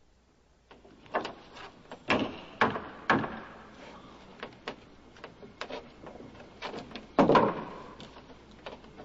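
Irregular wooden knocks and thuds on a guillotine's plank scaffold, from footsteps and handling on the boards. Three sharp knocks come close together about two to three seconds in, and a heavier, longer thud about seven seconds in.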